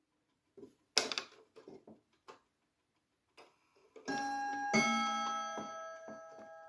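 Vedette Transistor ATO-MAT wall clock striking bim-bam on its two chime rods: after a few faint clicks, two strikes about half a second apart, a higher note then a lower one, both ringing on and slowly fading.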